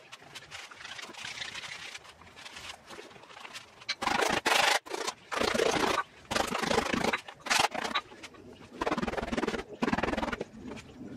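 Hands flexing and kneading a stiff new Wilson A2000 leather fastpitch glove during break-in: irregular bursts of leather rubbing and rustling, each lasting about a second.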